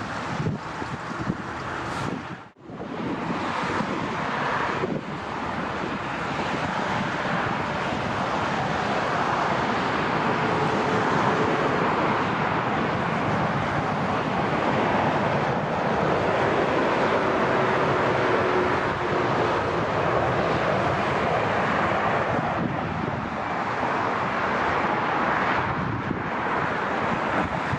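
Jet airliner engine noise, a steady rush with faint engine tones that slide slightly down in pitch, mixed with wind buffeting the microphone. The sound drops out for an instant about two and a half seconds in.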